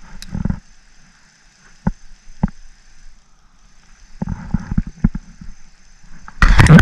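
Hands handling a freshly caught bluegill and fishing gear while unhooking it in a kayak: scattered rustles and two sharp clicks, then a loud scuffling clatter near the end.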